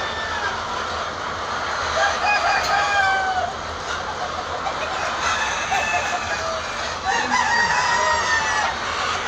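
A large flock of layer hens clucking and calling together, many drawn-out calls overlapping in a dense chorus over a steady low hum.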